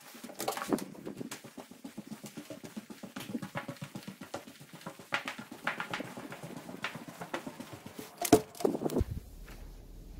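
Footsteps of someone walking along a hallway floor, a steady run of taps with a few sharper knocks, the loudest a little past eight seconds in. About nine seconds in, the steps give way to a low steady hum.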